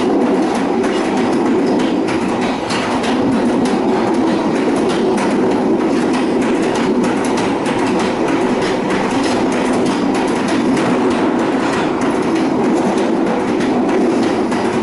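Train running steadily along the track: a continuous loud rumble with many small clicks and knocks from the wheels and rails.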